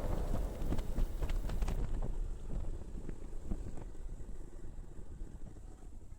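Low rumble of a moving vehicle with wind buffeting the microphone and scattered light rattles, fading down over the last few seconds.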